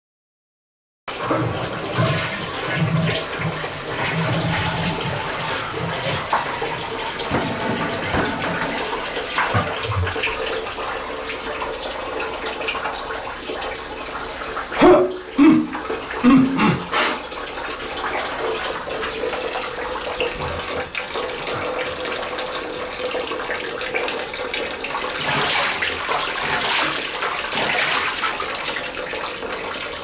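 Water running steadily from a bathroom tap and splashing in a tiled room. It starts about a second in, and a few short louder sounds break in about halfway through.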